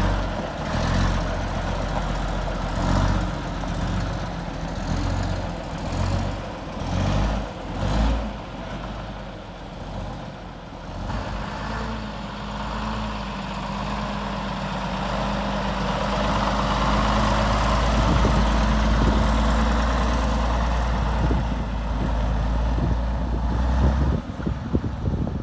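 Scania-Vabis 76 tractor unit's straight-six diesel engine running as the truck drives on gravel, a low rumble that is uneven at first, then steadier and louder through the middle.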